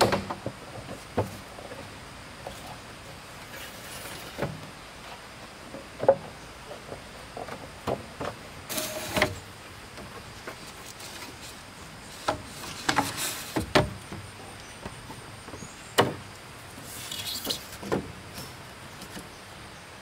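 Irregular knocks and clacks, with a few short scraping or rustling stretches in between.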